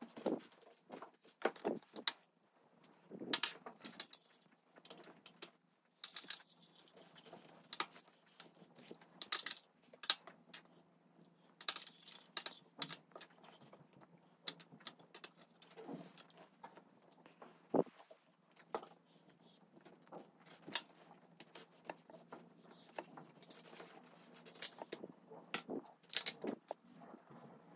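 Irregular light clicks and taps, scattered a few a second at most with short pauses between, as of small objects being handled.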